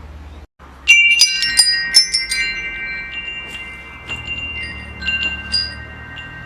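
Wind chimes: a cluster of strikes about a second in sets several high metal tones ringing and overlapping, followed by scattered lighter strikes as the ringing slowly fades.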